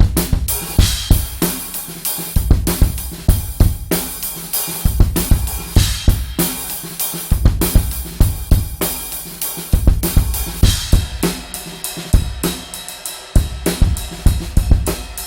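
A drum kit played without a break, with kick and snare hits under the constant ringing of a custom hand-hammered, lathed cymbal set.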